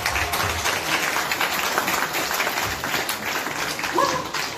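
Audience applauding, with many hands clapping together.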